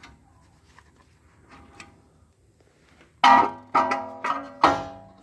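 Steel-backed brake pads clinking out of the caliper bracket, four sharp ringing metallic strikes in the second half, each dying away.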